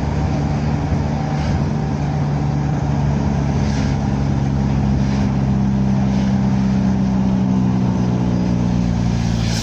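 Car engine running steadily while driving, with tyre and road noise; the engine note drifts slightly in pitch midway.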